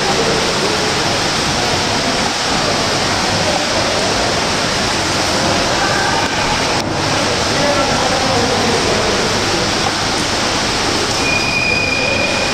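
Swimmers splashing through the water of an indoor pool hall, a steady wash of noise with faint voices under it. A short high tone sounds near the end.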